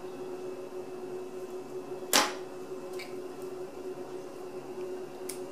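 Small camera parts handled on a tabletop: one sharp click about two seconds in, then a couple of fainter ticks, over a faint steady hum.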